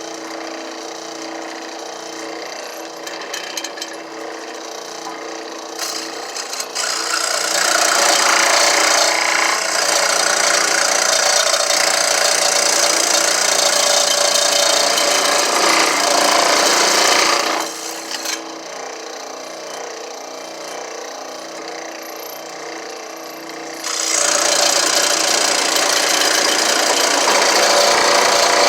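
A saw cutting into a wooden tree stump, in two long continuous spells: the first starts about 7 seconds in and stops about 17 seconds in, and the second starts again about 24 seconds in.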